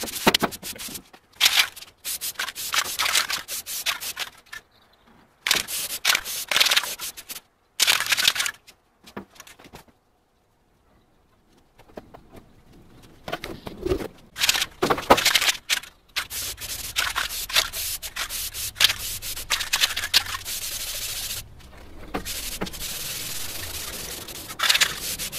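Aerosol spray-paint can hissing in repeated bursts of one to two seconds, then spraying almost without a break through the second half, with a few seconds of near silence in between.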